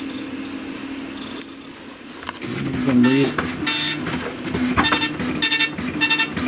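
Tandy DMP-250 colour dot matrix printer starting a print job. After a low steady hum, its stepper motors start about two seconds in with a whine that shifts in pitch, and short rasping bursts of the mechanism come about twice a second.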